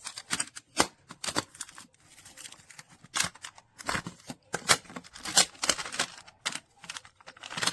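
Plastic magnetic building tiles being handled and clicking against one another: irregular sharp clacks, several a second, some louder than others.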